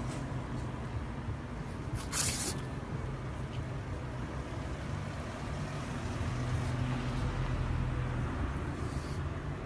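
A steady low rumble with a short loud hiss about two seconds in and a fainter hiss near the end.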